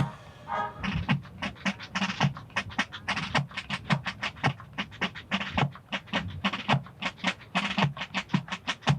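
Marching drum cadence: a quick, fairly even run of snare-drum strokes, about five a second, over bass-drum thuds, taking over as a tune ends about half a second in.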